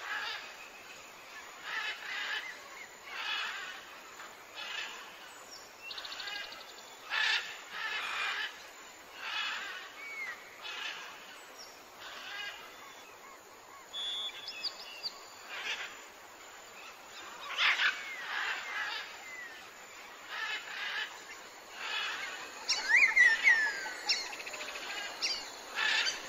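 Birds calling: short, harsh calls repeating about once every second or so, with a few thin whistled chirps and a cluster of falling whistles near the end.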